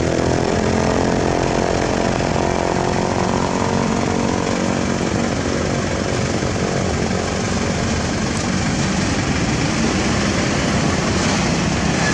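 Isuzu Elf NMR light truck's diesel engine running steadily as the loaded truck drives slowly past, its note falling in pitch right at the start.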